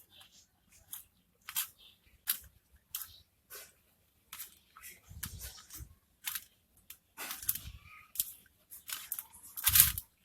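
Bowl of finely chopped boiled egg, vegetables and bread being mixed for bird soft food: irregular light clicks and scrapes.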